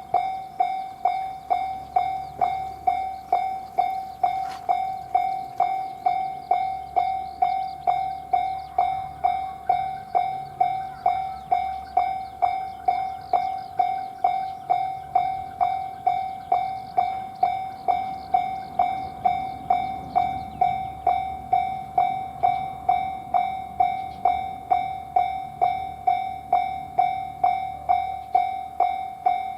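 Japanese railroad crossing warning bell ringing "kan-kan" steadily, about two strokes a second, each stroke ringing out and fading before the next. A train's low rumble runs underneath.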